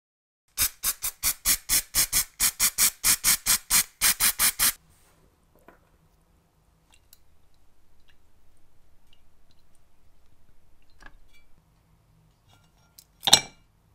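A quick run of about twenty rapid strokes, about five a second, then faint light scraping. Near the end comes one sharp clink of a small metal wheel held in tweezers against a glass dish.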